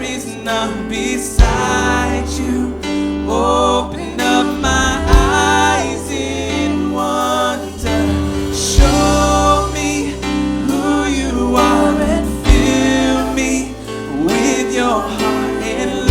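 Live worship band playing: lead and backing vocalists singing over piano, bass guitar and drums, with a heavy drum hit on the downbeat about every four seconds.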